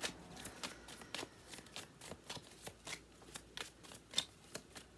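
A deck of oracle cards being shuffled by hand: a quick, irregular run of crisp card snaps, about three or four a second.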